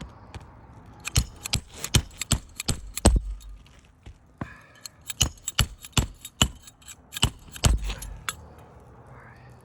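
Hammer striking a RoofSnake shingle-repair tool again and again to drive the last roofing nail flush under a shingle: about twenty sharp metallic taps over some seven seconds, with a short pause midway.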